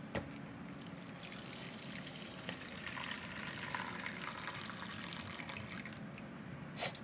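Water poured from a glass jug into a non-stick wok, running and splashing steadily and growing fuller for a few seconds before the pour stops. A sharp knock comes near the end.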